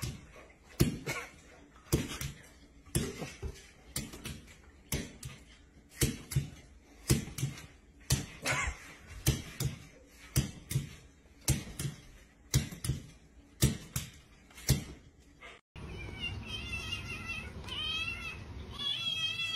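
A run of sharp smacks, about two a second, as a hand strikes quickly in front of a cat. Near the end a kitten meows several times.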